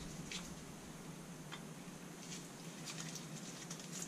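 Faint, scattered light clicks and taps of small metal parts being handled while a Holley carburettor's accelerator pump is taken apart, over a faint steady hum.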